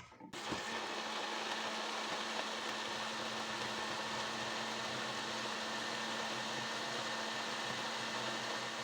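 Moulinex electric blender starting a moment in and then running steadily, puréeing boiled lemons with their cooking water.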